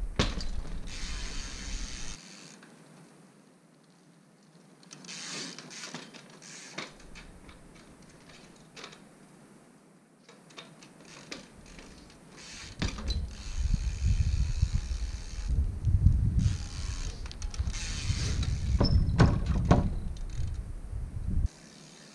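Trials bike being ridden and hopped: the freewheel ratchet clicks and the tyres knock sharply as they land on concrete. Through the second half a loud low rumbling runs under the clicks, then cuts off suddenly near the end.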